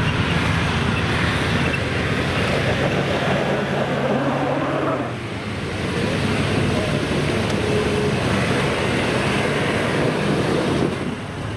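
Off-road 4x4 engine running under load as a red Nissan Patrol climbs a rutted, rocky dirt slope. The engine note drops off briefly about five seconds in and again near the end.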